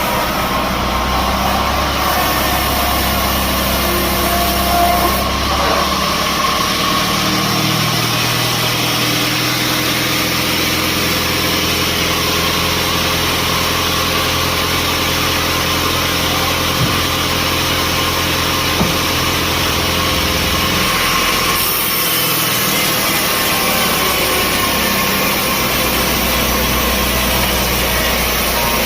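Engine of sawmill machinery running steadily, its note changing several times.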